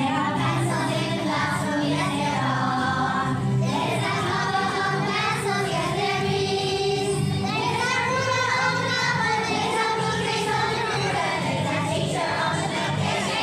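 A group of children singing together over recorded backing music with a repeating bass line.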